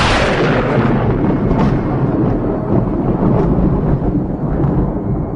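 Thunder rumbling: the hiss of the clap fades over the first couple of seconds while a low rolling rumble carries on.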